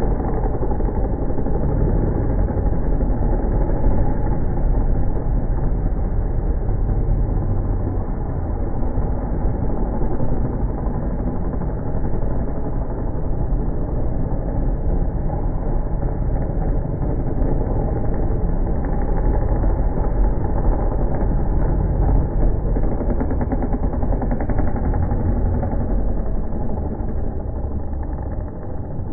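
A pack of dirt bike engines racing around a supercross track, running and revving together in a steady, continuous drone.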